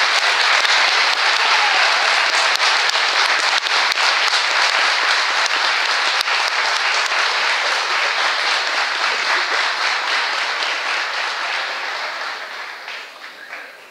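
Audience applauding steadily, then dying away over the last two seconds.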